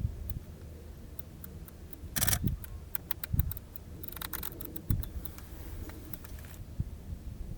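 Camera shutter clicks: scattered single shots, then a rapid continuous burst about four seconds in that runs for a couple of seconds. A few low thumps lie underneath.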